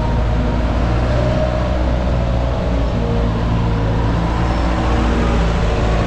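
Diesel engine of a passenger jeepney running right alongside, a steady low drone, over general street-traffic noise.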